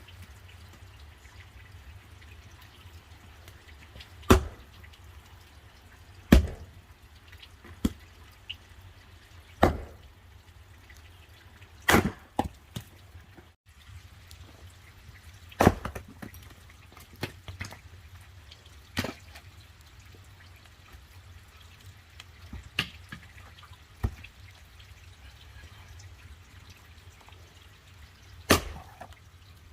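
Axe splitting firewood: about a dozen sharp chopping strikes, irregular and a couple of seconds apart, some coming in quick pairs.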